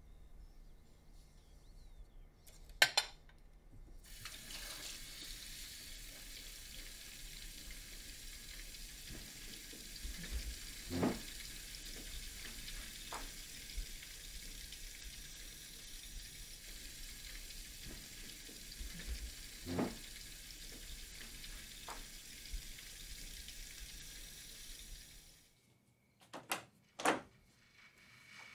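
A kitchen tap running into a sink, a steady hiss that starts about four seconds in, with a few sharp clinks of plates and dishes now and then. The running water stops near the end, and a few sharp knocks follow.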